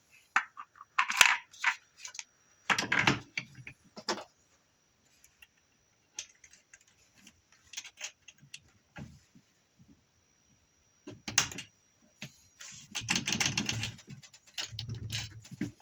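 Irregular clicks, taps and rattles of a pressure washer's wheel, axle and hitch-pin parts being handled and fitted onto the frame, with a busier stretch of handling noise near the end.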